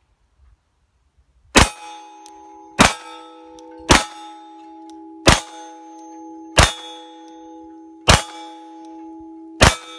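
Glock 34 9mm pistol fired slowly, seven shots about a second and a half apart, starting about a second and a half in. Each shot is followed by a long metallic ringing that lasts until the next.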